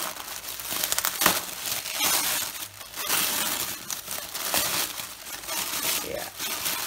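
Tissue paper crackling and rustling as it is torn and unfolded from around a bundle of yarn balls, in irregular handling bursts with a sharp crackle about a second in.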